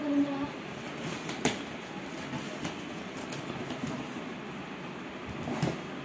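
Cardboard shipping box being handled by hand, with a sharp knock about a second and a half in and another near the end, over steady background noise.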